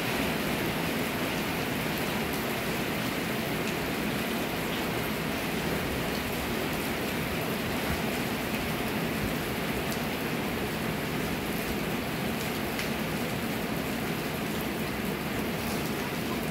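Steady rain falling, heard from beneath a sheet-metal shelter roof.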